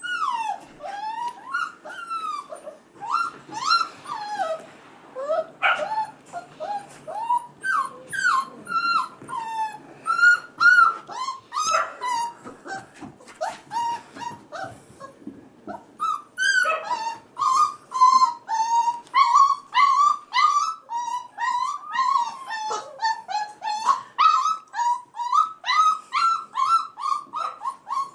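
Young F1b Goldendoodle puppies, about five weeks old, crying in a constant string of short, high whines and yips, many overlapping. Past the halfway point the cries grow more regular, a couple to each second.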